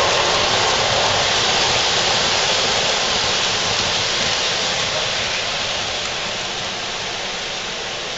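O scale model trains rolling on three-rail track, a steady rushing rumble of wheels and motors that fades slowly as the trains move away.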